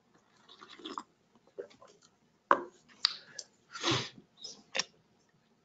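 A person drinking from a paper cup close to the microphone: several short sips and swallows with lip smacks and small clicks of the mouth, spread through the few seconds.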